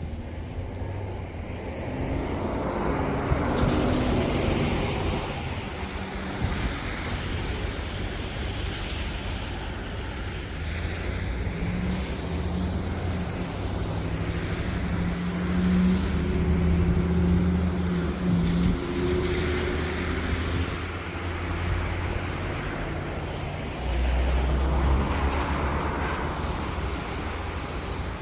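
Road traffic passing on a wet, slushy road: the hiss of tyres through slush swells and fades as vehicles go by, about three times, over a low engine hum.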